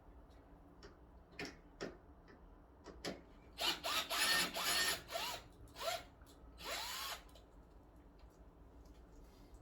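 Cordless electric drill-driver run in several short bursts, its motor whine rising and falling as it spins up and slows, unscrewing fasteners from a side-by-side refrigerator being taken apart. A couple of light clicks come first.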